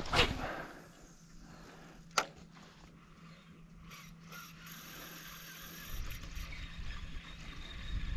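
A spinning rod and reel being cast and retrieved: a loud swish as the rod is cast, a sharp click about two seconds in, then the reel's gears ticking and whirring faintly as the line is wound in. A low rumble joins about six seconds in.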